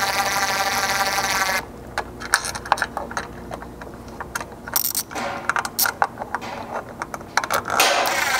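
Cordless drill-driver running a hex bit to tighten button-head screws into a rock light, with a steady whine for about a second and a half. Then come a few seconds of scattered light metallic clicks and ticks, and the driver whines again near the end.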